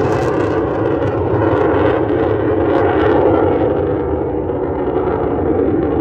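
Twin jet engines of an F-15E Strike Eagle, a loud steady rumble as the jet climbs away. The high hiss dies off over the few seconds as it recedes, leaving the low roar.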